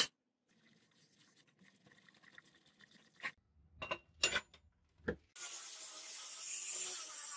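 A few sharp metal clinks as steel bearings and a gear ring are handled in a tin. About five seconds in, an angle grinder fitted with a wire cup brush starts up, scrubbing rust off a rusty truck air compressor cylinder head. It makes a steady, wavering whine with scraping.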